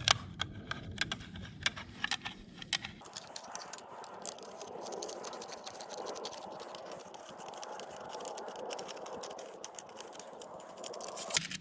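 Hand tools and metal mounting hardware clicking, knocking and scraping as the old bow-mount trolling motor is unbolted. Separate sharp knocks come first; about three seconds in they give way to a steady scraping rattle with rapid ticks.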